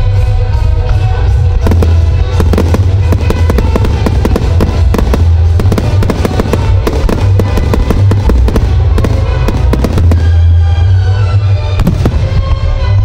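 Fireworks firing in quick succession, many sharp pops and bangs a second, over the display's loud music soundtrack. The barrage starts about two seconds in and eases off about ten seconds in, with one more bang near the end.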